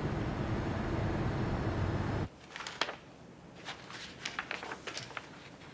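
Steady low rumble of a car heard from inside, driving. It cuts off abruptly about two seconds in, giving way to a quiet room with scattered light clicks and taps.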